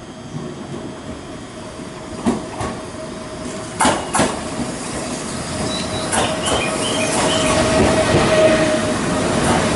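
JR East E493 series electric traction car, towing an EF81 electric locomotive, rolling slowly along the platform and growing louder as it nears. Its wheels clack sharply over rail joints, a couple of times around the middle, with a thin steady squeal that strengthens near the end.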